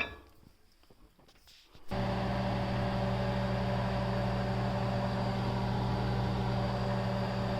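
Microwave oven starting up and running with a steady, even hum, cooking whisked egg and milk. A few faint clicks come before the hum, which starts about two seconds in.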